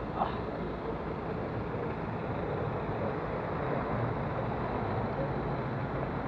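Steady road-traffic noise along a busy street, with a brief high squeak about a quarter of a second in.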